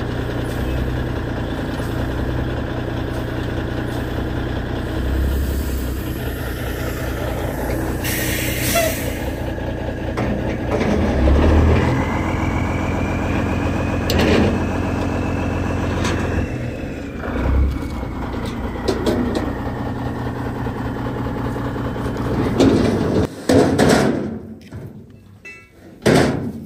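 Heavy diesel truck engine idling steadily, with a few metallic knocks over it. The engine sound cuts off suddenly near the end.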